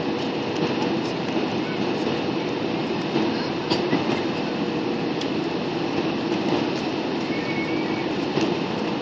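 Airliner cabin noise: a steady engine and airflow rush with a constant hum running under it.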